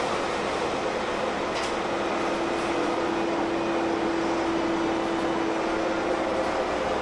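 Cabin noise inside a Heuliez GX317 LPG-fuelled city bus as it runs: a steady mechanical hum, with a whine holding one pitch from about two seconds in until shortly before the end.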